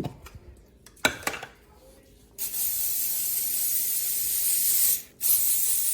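Aerosol cooking spray hissing as baking pans are greased, in two long bursts with a short break between them, after a couple of light knocks.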